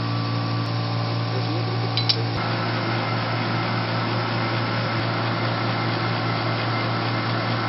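Steady mechanical hum and whir of running machinery, with one short click about two seconds in. The tone of the hum shifts slightly about two and a half seconds in.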